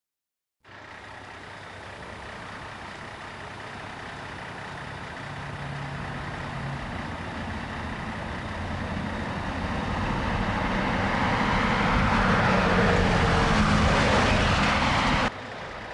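City bus engine and road noise, growing steadily louder, then dropping suddenly near the end to a quieter hum.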